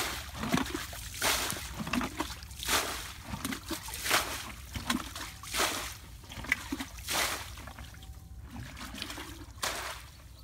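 Water splashing and sloshing in a metal basin as hands rinse and rub a plucked bird carcass, in repeated splashes about every one and a half seconds that thin out near the end.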